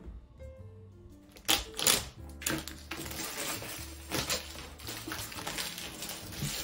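A cardboard shelf box being slit open with a utility knife and its plastic wrap pulled off: a run of sharp crackles and scrapes, loudest about a second and a half to two seconds in, over background music.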